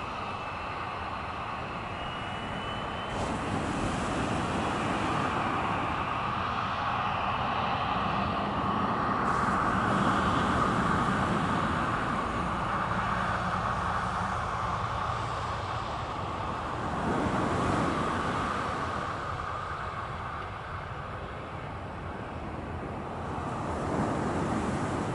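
Jet engines of a Boeing 737-300 (CFM56) running as the airliner rolls along the runway after landing: a steady rushing whine over a low rumble, swelling to its loudest about halfway through and easing off.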